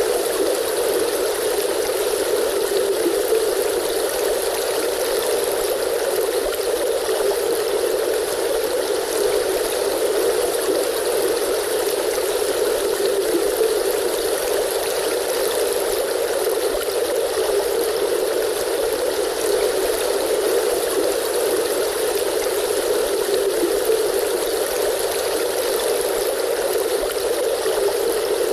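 Stream water flowing steadily: an even, unbroken rush with no splashes or pauses.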